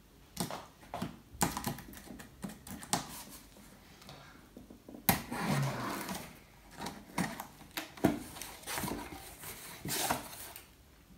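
A parcel being opened by hand: irregular clicks, scrapes and rustles of the packaging, some in quick bunches.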